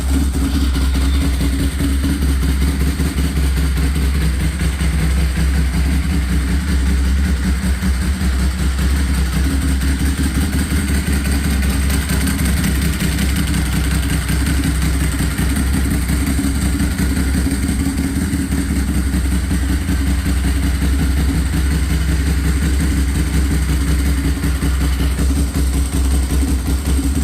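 2005 Ducati Monster S4R's liquid-cooled L-twin engine running steadily, with no revving up or down.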